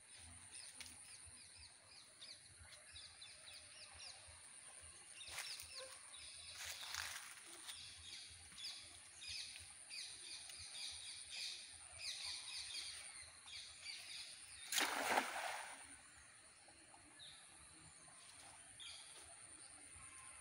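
Birds chirping and calling over a steady high whine; about fifteen seconds in comes the loudest sound, a brief splash as the thrown cast net lands on the water.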